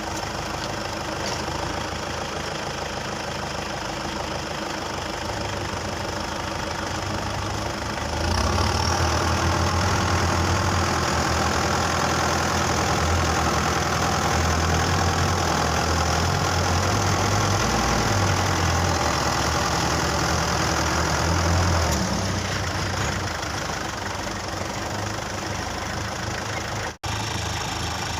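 Kubota tractor diesel engine running steadily, then working harder and louder from about eight seconds in for some fourteen seconds, as it pulls to tow a tractor stuck in mud, before easing back. The sound cuts out for an instant near the end.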